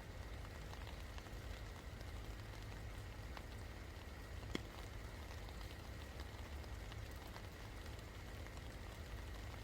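Steady rain falling, with scattered drops ticking on a surface and one sharper drop about halfway through.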